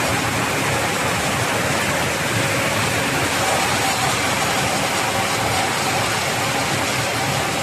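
Glass tempering furnace running, giving a loud, steady rush of blown air with a faint hum under it.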